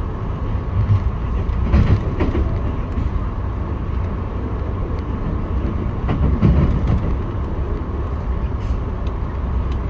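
Via Rail passenger train running, heard from inside the coach: a steady rumble of wheels on rails. Louder bumps come about two seconds in and again past the six-second mark.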